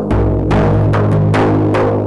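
Daf, a large Middle Eastern frame drum, struck by hand in a steady rhythm of deep strokes and sharper slaps, about two to three a second, over a low sustained drone.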